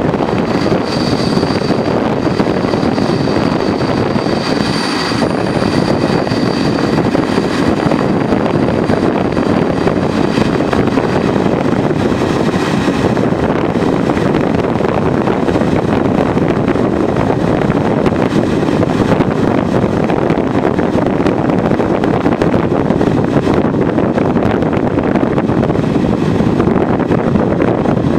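Steady rush of a diesel-hauled train running at speed, heard at an open carriage window, with wind buffeting the microphone. A faint high tone sounds over it for the first several seconds.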